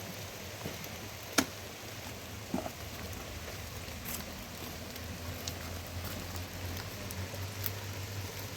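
Steady rain pattering, with one sharp knock about a second and a half in.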